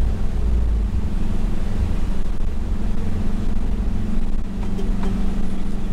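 Toyota HiAce Commuter van driving along at a steady pace, heard from inside the cabin: a steady engine hum over low road rumble.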